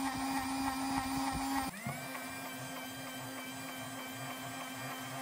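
Battery-powered Mickey Mouse bubble machine running: its small motor and fan make a steady whirring hum as it blows soap bubbles. The hum drops slightly about two seconds in.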